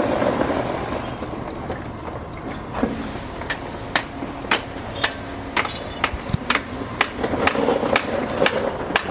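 Sharp knocks repeating evenly, about two a second, starting a few seconds in, over a steady machinery rumble of a concrete pour.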